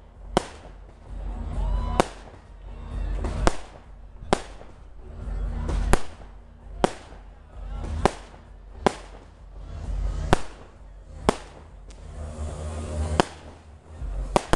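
Fireworks display: about a dozen sharp bangs, roughly one a second, with low rumbling between them.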